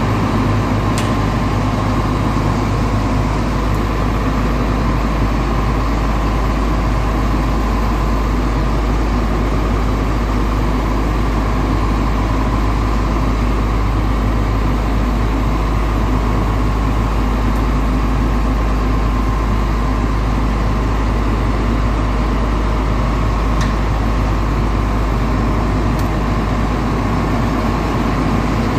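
A crawler-mounted drilling rig's engine running steadily with a deep, even drone, along with a few faint clicks.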